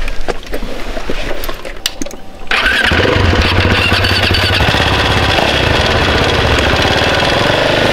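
A few clicks and knocks, then about two and a half seconds in a single-cylinder motorcycle engine starts and settles into a steady, loud idle.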